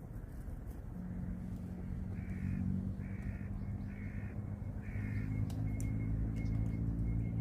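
A crow cawing four times, about a second apart, over a steady low hum.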